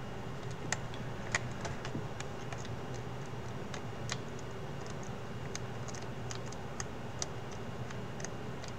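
Small, irregular clicks and taps of a 3D-printed plastic hinge being handled and fitted onto the hinge pin of a Pimax Vision 8kX VR headset, over a steady low hum.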